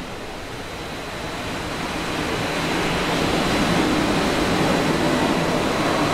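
Water rushing through a test loop's piping and a 90-01 pressure reducing valve, growing steadily louder as flow and inlet pressure build up in the system.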